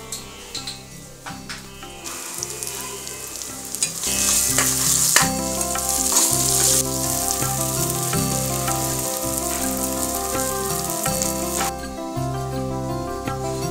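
Food sizzling as it fries in hot oil in a pan. The sizzle starts about two seconds in, is loudest a few seconds later and cuts off suddenly near the end, over background music.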